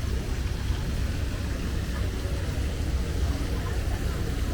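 Steady low rumble of vehicle engines and traffic, even and unbroken, with no distinct events standing out.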